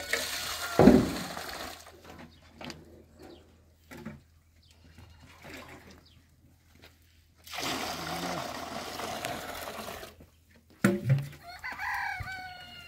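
Domestic chicken calling near the end, over scattered small knocks. A loud thump comes about a second in, and a steady rushing noise lasts about two and a half seconds in the middle.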